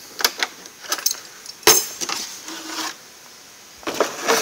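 Tools and cases being handled in a metal tool roll cart: scattered clicks and clinks, a sharper knock a little under two seconds in, and a clatter near the end.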